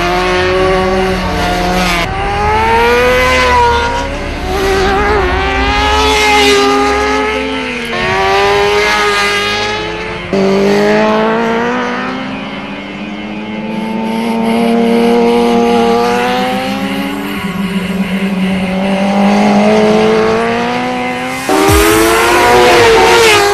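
Racing motorcycle engines at high revs, the pitch climbing and falling as the bikes accelerate. The sound is made of several clips, cut abruptly one after another.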